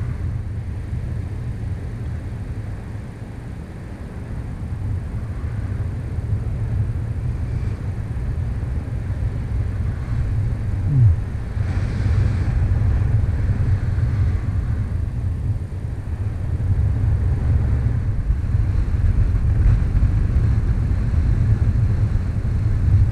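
Wind rushing over the camera microphone of a paraglider in flight: a low rumble that swells and eases with the airflow. About halfway through there is one short falling tone.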